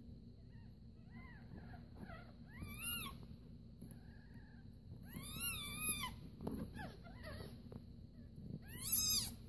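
Newborn kittens mewing: a string of short, high-pitched cries, each rising and falling, with the longest and loudest around five seconds in and another loud one near the end.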